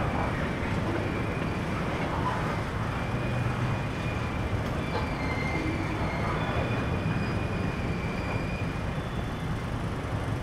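Manifest freight train of covered hopper cars rolling across a street grade crossing, a steady rumble of wheels on rail. Faint high tones come and go through the middle.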